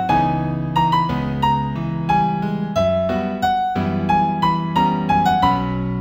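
New Age instrumental music in B major: a piano-like keyboard plays a melody of single struck notes, each fading, over held low chords.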